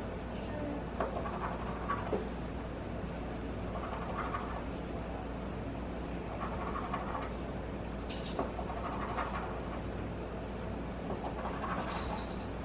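The coating of a scratch-off lottery ticket being scratched off in short strokes, in bursts every second or two.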